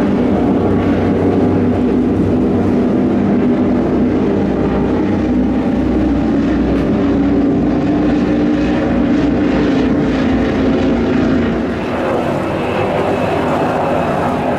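Several high-performance offshore powerboats running flat out, their big engines a loud, steady drone. About twelve seconds in the sound drops a little and changes character.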